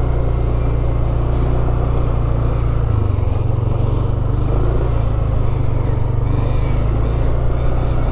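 Motorcycle engine running steadily as it is ridden along, its note shifting about three seconds in.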